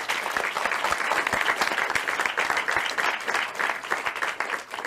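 Applause: many hands clapping steadily, thinning out near the end.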